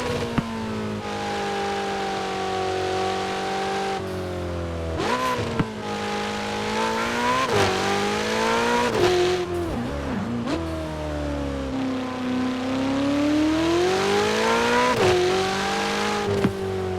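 2019 Ferrari 488 Pista's twin-turbo V8 running, its pitch rising and falling under changing revs, with several quick sharp rev jumps and a slow dip and climb in the middle.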